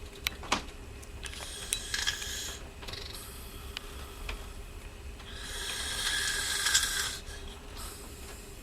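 A person snoring: short raspy snorts early on, then one long, loud, rattling snore about five seconds in. A few sharp clicks come right at the start, and a steady low hum runs underneath.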